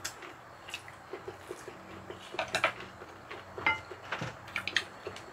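Cutlery clicking and clinking against dishes during a meal: a scatter of short, sharp taps, with one brief ringing clink about three and a half seconds in.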